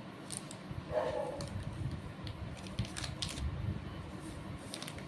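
Light handling noise from a new smartphone and its packaging: scattered small clicks, taps and rustles as the phone is lifted and turned over in the hands.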